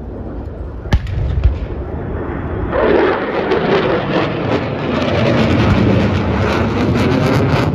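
F-35 fighter jet roaring past, very loud, its noise surging in about three seconds in and holding. A couple of knocks on the microphone come about a second in.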